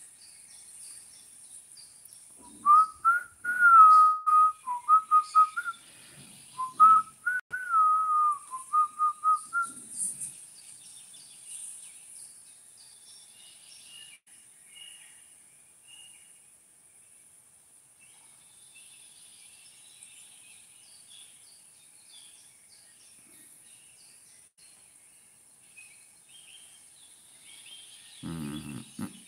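A person whistling a tune, two phrases of wavering notes in the first ten seconds, then stopping. Afterwards only faint bird chirps over a steady high hiss.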